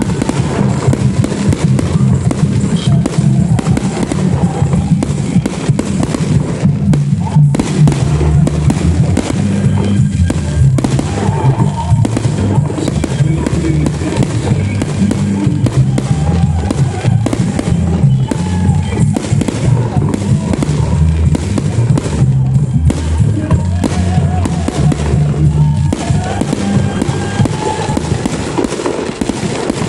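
Fireworks going off in rapid succession, sharp bangs and crackle over loud music with a heavy bass line, which fades out near the end.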